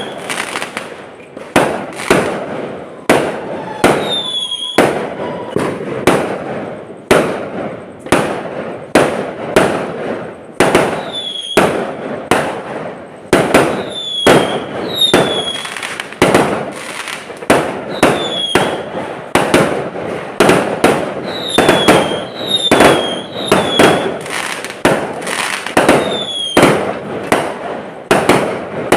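Fireworks display going off in a steady run of loud bangs, about one or two a second, each with a ringing tail, many with a brief falling whistle.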